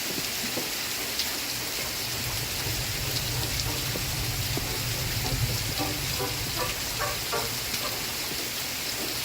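Steady rain falling: an even hiss with light patter. In the middle a faint low hum and a few faint pitched sounds from the background TV soundtrack show through beneath it.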